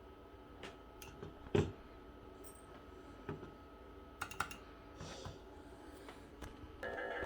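Scattered, irregular clicks of a computer keyboard and mouse being used, over a steady faint electronic hum. Music starts up near the end.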